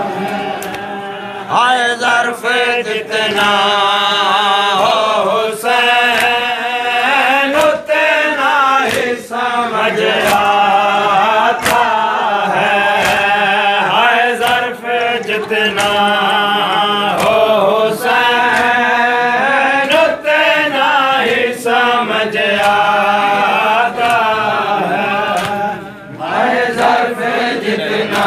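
A group of mourners chanting a noha (Shia lament for Imam Hussain) in unison. Sharp slaps of matam (chest-beating) are struck through the chant.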